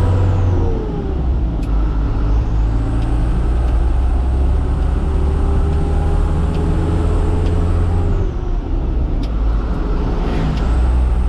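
Truck engine running at low speed with a steady low hum, its note shifting about a second in and again near eight seconds.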